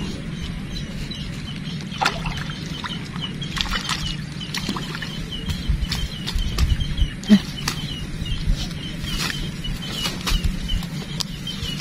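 Rustling and brushing of shrubs with irregular clicks and low rumbles, over a steady low hum and a rapid high chirping in the background.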